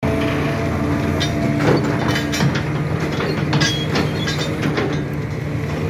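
Excavator's diesel engine running steadily, with irregular clanks and rattles of rubble and metal as its hydraulic demolition attachment works the debris.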